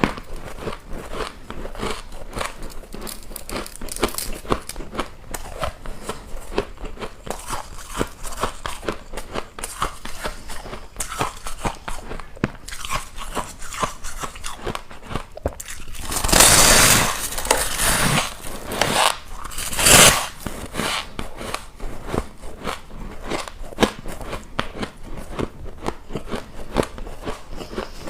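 A person biting and chewing ice close to the microphone: a dense, irregular run of crisp crunches. Two louder rushing bursts come a little past halfway.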